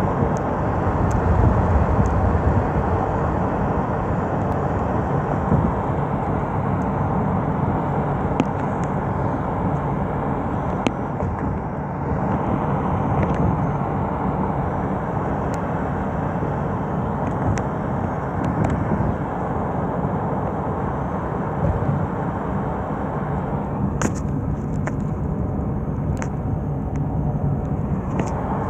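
Steady low rumble of road and engine noise from a moving car, with a few faint ticks.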